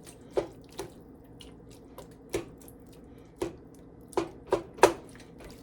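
Irregular series of about seven sharp taps and knocks of kitchenware against a pot, with wet squishing and dripping in between, as canned chicken and its broth go into the pot. The loudest knocks come close together near the end.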